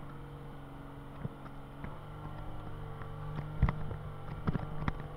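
IVECO trial truck's diesel engine heard from inside the cab, running at a steady note, with sharp knocks and rattles from the cab as the truck works over rough ground, the loudest about three and a half seconds in.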